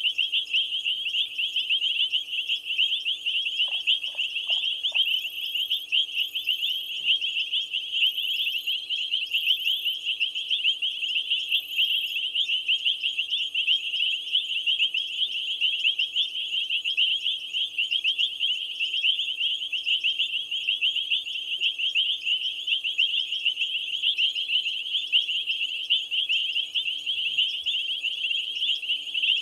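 Dense night chorus of calling insects: a continuous high-pitched trilling, with fainter, higher buzzes from other insects coming and going.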